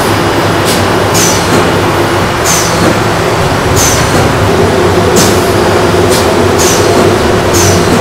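Metal roasting hooks clinking against the rim of a charcoal drum oven as ducks are hung inside, about eight sharp clinks each with a short high ring, over a loud steady hum and rush of workshop machinery.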